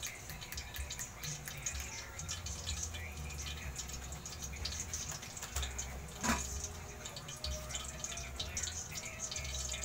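Hot oil crackling and popping in a large aluminium wok, with one sharp knock about six seconds in.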